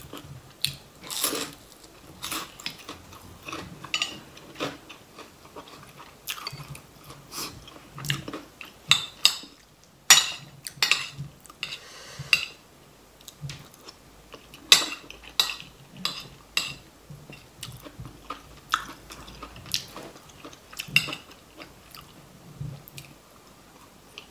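Metal spoon clinking and scraping against a ceramic bowl of curry, in many short sharp clicks, with close-up chewing between spoonfuls.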